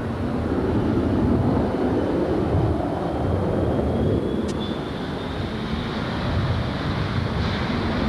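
Boeing 727-25C's three Pratt & Whitney JT8D turbofans at takeoff power as the jet climbs out: a steady, loud jet rumble.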